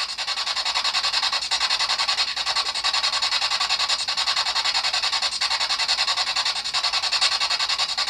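Spirit box (ghost box) scanning radio sweeping through stations: a steady hiss of static, chopped into rapid even pulses several times a second, with no clear voice in it.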